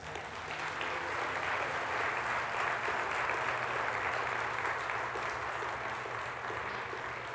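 An audience applauding: steady clapping that swells over the first second, holds and eases off slightly near the end.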